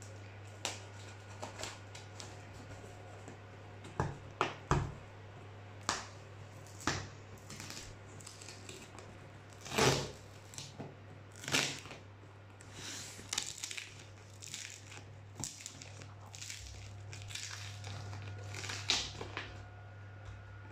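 Utility knife cutting and tearing packing tape on a large cardboard box, with irregular scrapes, rips and knocks of the cardboard, loudest about halfway through. A low steady hum runs underneath.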